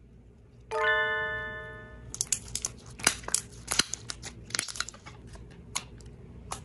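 A single musical note rings about a second in and fades out. Then soft slime is squeezed and kneaded in the hands, giving a dense run of small crackling pops of trapped air bubbles, a gurgling bubble-popping sound.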